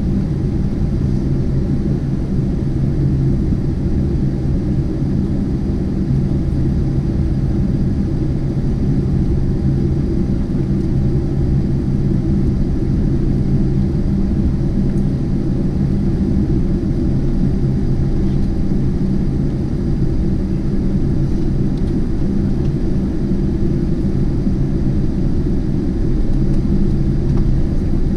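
Steady low rumble of cabin noise in a Boeing 747-8 on the ground after landing, from its engines and air systems.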